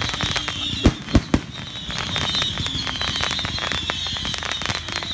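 Dense fireworks barrage: a continuous high, wavering screech like millions of mice squeaking, from many whistling fireworks at once, over constant crackling, with three loud bangs close together about a second in.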